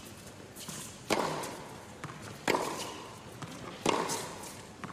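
Tennis rally: rackets striking the ball back and forth in three sharp hits about a second and a half apart, each with a short echo off the arena.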